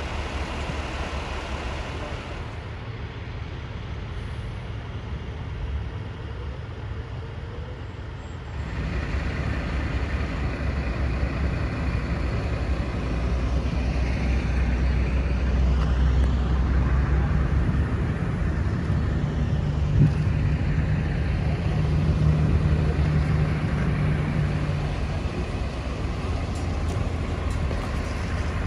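Heavy truck tractor's diesel engine running under load as it tows a house on a trailer: a deep, steady low rumble that grows louder about a third of the way in, with a steady hum over it in the middle stretch. One short sharp knock comes about two-thirds through.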